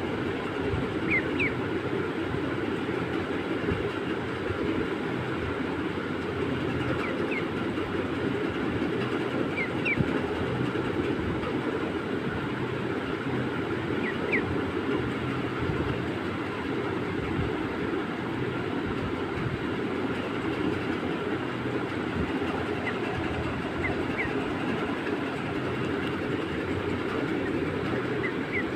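A steady low rumble of noise, like a train running, with a duckling giving a few faint, short high peeps now and then.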